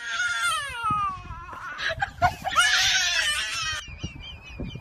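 High-pitched crying: a long wail that falls away, then a harsher shrieking cry about two and a half seconds in, tailing off into short squeaky sobs near the end.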